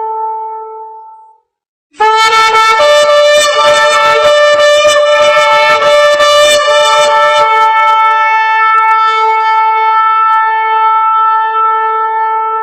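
A large trumpet blowing long held notes. One note fades out, and after a short gap a loud note starts abruptly about two seconds in. It is rough with a second pitch for about five seconds, then settles into a steady held tone.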